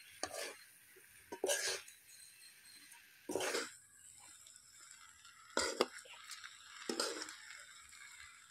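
Two steel spoons scraping the metal pan as they toss and mix noodles: about five short scrapes, a second or two apart.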